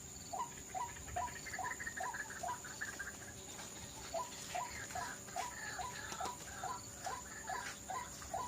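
White-breasted waterhen (ruak-ruak) calling: a long run of short, evenly spaced two-part notes, about two and a half a second, breaking off briefly about three seconds in and then going on.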